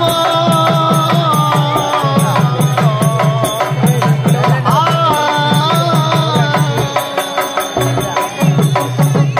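Koothu stage music: a harmonium holding and shifting melody notes over a quick, steady hand-drum beat of about four strokes a second.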